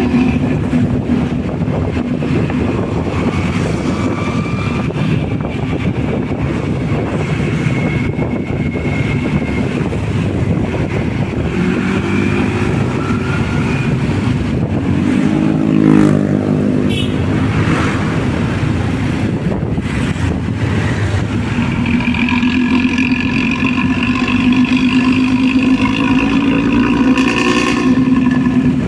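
Hino diesel bus running on the road with a growling exhaust note. About halfway the pitch sweeps down with a brief louder moment, and in the last quarter several steady tones ring together over the engine.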